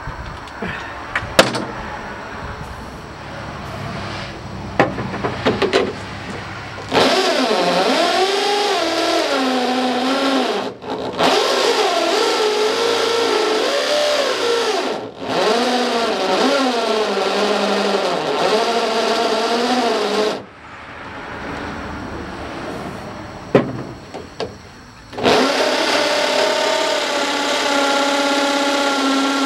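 Corded DeWalt electric drill drilling holes in a truck's sheet-metal door, its motor pitch wavering as the bit bites. A few clicks of handling come first, then the drill runs in two long spells, with short stops around 11 and 15 seconds and a longer pause between about 20 and 25 seconds.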